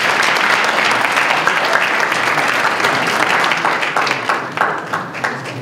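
Audience applauding: dense clapping that thins out into a few scattered claps near the end.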